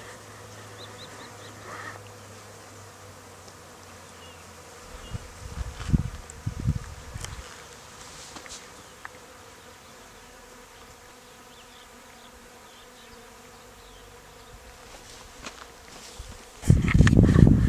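Insects buzzing in a steady faint drone. Low rumbling bursts come about five to seven seconds in, and a much louder one comes near the end.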